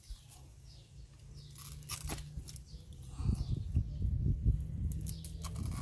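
Knife cutting through the crown where a hand of green bananas joins the bunch's stalk, a rough scraping and crunching of blade in fibrous stem that grows louder about three seconds in.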